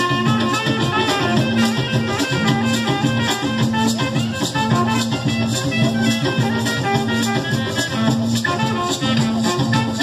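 Carimbó band playing live, an instrumental stretch without singing: drums keep a steady repeating beat under shaken maracas and guitars.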